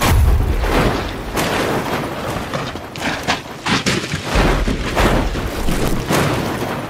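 Car with a roll cage tumbling down a steep dirt slope. There is a heavy crash at the start, then a string of crashing impacts as it rolls over and over.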